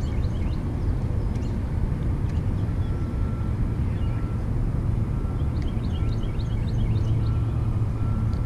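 Outdoor ambience: a steady low rumble, with a bird's quick run of high chirps about six seconds in and a faint short note repeating about once a second.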